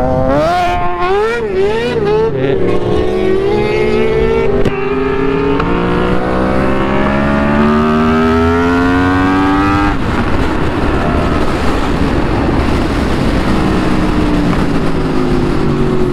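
Sportbike engine under the rider, revving up and down a few times, then pulling hard with a long steady rise in pitch that breaks off suddenly about ten seconds in, after which it runs on more roughly.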